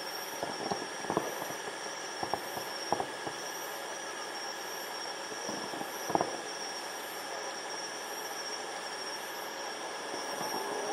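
Distant aerial firework shells bursting as muffled bangs: several in the first three seconds, a louder one about six seconds in, and a cluster near the end. Under them runs a steady high-pitched whine with a faint pulsing chirp.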